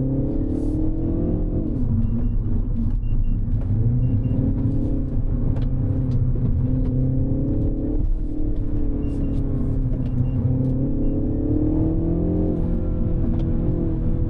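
2025 Mini Cooper S's turbocharged 2.0-litre four-cylinder engine pulling hard, its pitch climbing and then dropping at gear changes, about one and a half seconds in, around eight seconds in and near the end. A few faint short high beeps come and go.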